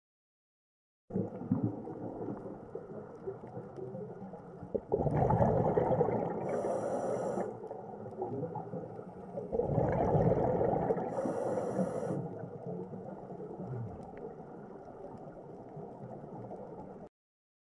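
Scuba diver breathing underwater through a regulator: two breaths about five seconds apart, each a loud bubbling rush with a brief high hiss, over a low murky underwater background.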